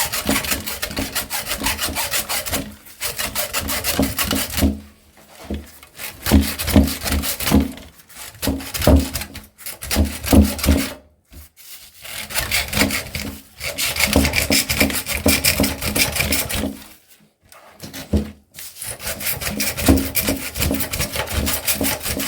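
A hand saw cutting through an electric motor's burnt copper windings in runs of rapid back-and-forth strokes, stopping briefly about five times.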